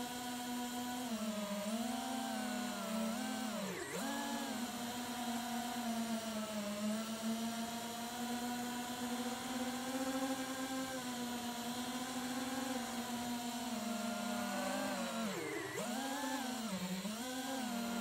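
FPV mini quadcopter's brushless motors and propellers whining, heard from the camera on board; the pitch wavers with throttle, dropping sharply about four seconds in and again near the end.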